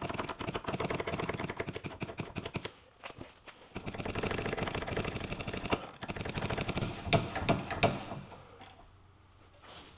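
Ratcheting wrench clicking rapidly as it turns the stabilizer bar end-link nut, in three runs with short pauses about three and six seconds in.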